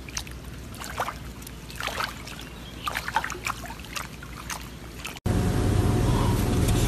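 Wet mud and water sloshing and squelching with small irregular splashes and clicks as a pig wallows in a mud puddle. About five seconds in this cuts off to a louder steady low hum.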